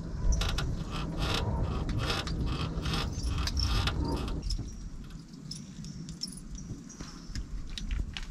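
A squeaky boat seat creaking and squeaking over and over as its occupant shifts, over a low rumble that drops off about halfway through.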